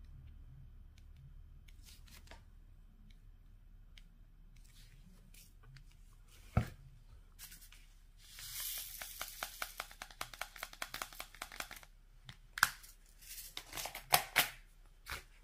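Handling of a diamond painting canvas: a sharp tap about six seconds in, then the crackle of sticky clear plastic cover film being peeled back, full of rapid small clicks, followed by a few louder clicks near the end.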